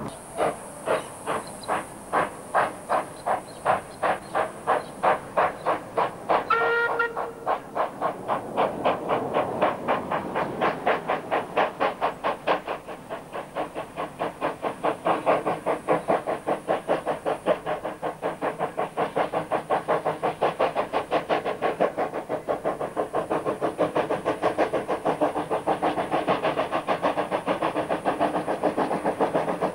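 Queensland Rail C17-class 4-8-0 steam locomotive working hard with a train, its exhaust chuffing in sharp regular beats that quicken as it gathers speed. A short whistle toot sounds about seven seconds in.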